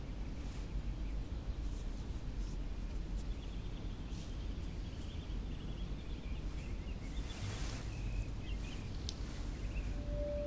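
Steady low ambient rumble and hiss with faint high chirps in the middle. Near the end a single sustained pure tone sets in.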